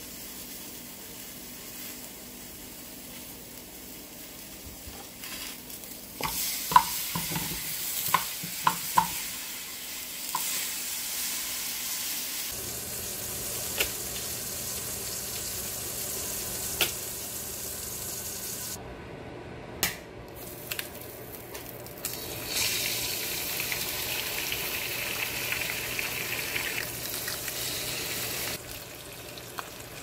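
Meat patty frying in a ceramic non-stick pan, a steady sizzle. A few sharp clicks come about a quarter of the way in, and the sizzling grows louder and brighter about three quarters of the way through.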